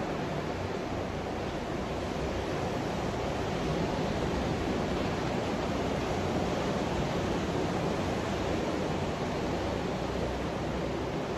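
Ocean surf breaking along the shore, a steady wash of noise with no separate crashes standing out.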